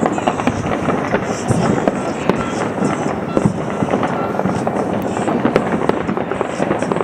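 Fireworks and firecrackers going off: a dense, continuous crackle of many sharp pops running together.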